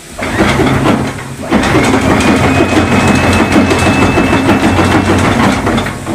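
Electric anchor windlass hauling anchor chain, the motor humming under the chain links rattling through the deck pipe into the chain locker. It stops briefly about a second in, starts again and runs until near the end.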